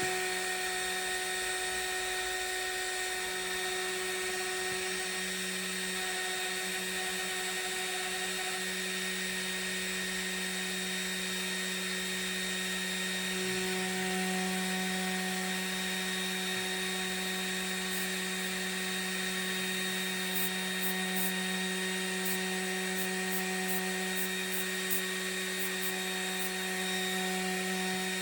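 Desktop CNC router spindle spinning a small end mill at a steady speed while milling fine channels into acrylic (PMMA), a steady high-pitched whine. There are faint ticks in the second half. The cut is so light that it throws almost no debris.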